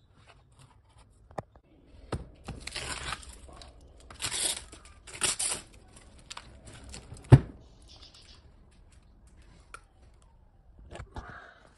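Adhesive tape being ripped off a lithium pouch-cell pack in three quick tearing pulls, with small clicks of handling. About halfway through comes a single sharp knock, the loudest sound.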